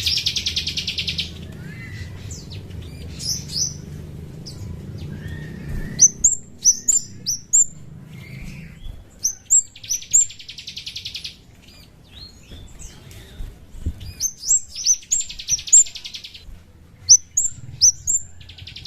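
Kemade, a small Indonesian songbird, singing. Quick series of sharp, high chirps alternate with buzzy, rattling trills about a second long, which come four times.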